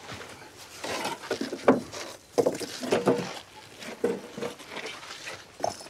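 Rough sandstone blocks being handled and sorted, with irregular knocks and scrapes of stone against stone. The sharpest knock comes just under two seconds in.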